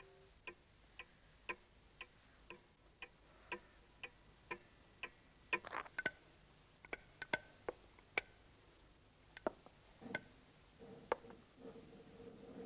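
Pendulum clock ticking faintly, about two ticks a second and steady for the first five seconds, then uneven, with some louder clicks.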